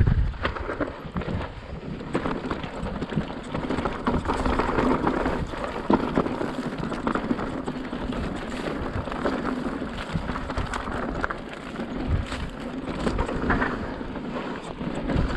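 Yeti SB160 full-suspension mountain bike riding fast down a dry dirt singletrack: a steady rush of tyres on dirt and rough ground, with frequent sharp clicks and rattles from bumps, and tall grass swishing against the bike.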